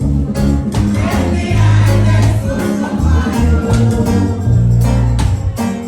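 Church band music with a steady beat and a heavy bass line, with some singing.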